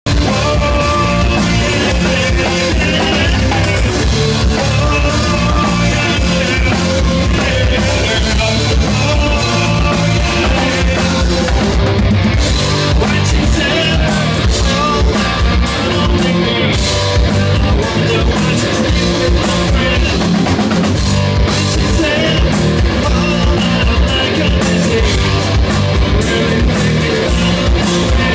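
Live grunge rock band playing loudly on drum kit, electric bass and guitar, with the drums and cymbals striking out more sharply about twelve seconds in.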